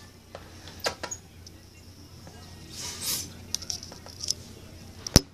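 Handheld spray bottle misting a reptile tank: one hissing squirt about three seconds in among several sharp clicks, the loudest click near the end.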